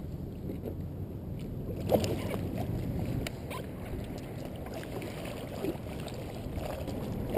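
Water lapping and sloshing around a float tube, with a sharp knock about two seconds in and scattered clicks from handling a baitcasting rod and reel as it is cast and wound in.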